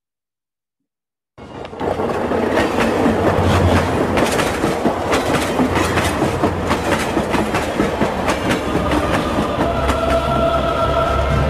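Logo-intro sound effect: after about a second and a half of silence, a dense rushing rumble full of rapid clicks fades in quickly and holds steady, and sustained musical tones enter near the end.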